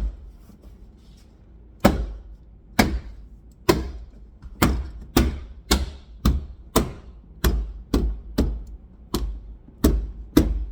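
Repeated sharp knocks as a plastic trim piece is tapped into a Honda CRX door panel to seat it. About two seconds in, a run of about fourteen knocks begins, one to two a second.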